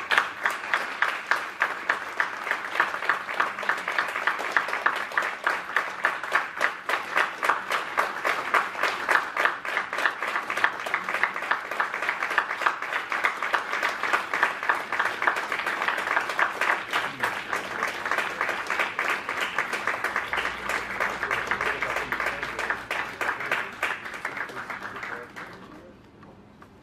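Audience applauding: steady, dense clapping by many hands that dies away about a second before the end.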